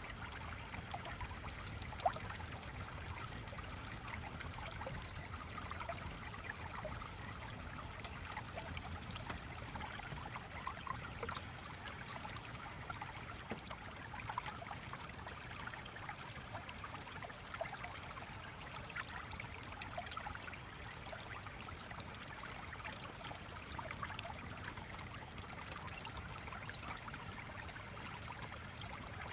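Steady trickling and babbling of a small stream, sprinkled with faint scattered ticks, with one sharper click about two seconds in.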